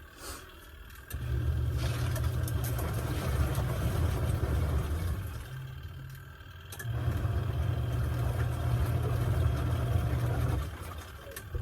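Giantex (Costway) portable twin-tub washing machine's wash motor running with a low hum, agitating a load of jeans. It runs for about four seconds, pauses for about a second, then runs again, as the wash cycle starts and stops.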